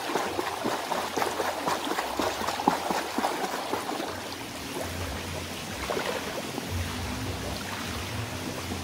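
Swimming-pool water trickling and splashing lightly: a steady wash of water dotted with many small drips and ticks, over a low rumble that comes and goes.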